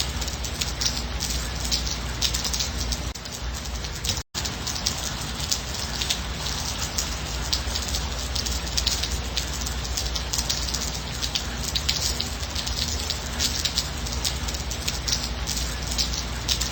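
Gentle, steady rain falling, with many separate drop hits. The sound cuts out for an instant about four seconds in.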